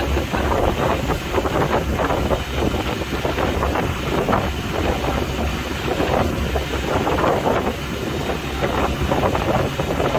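A fishing boat's engine running under way with a steady low rumble, while wind buffets the microphone in irregular gusts.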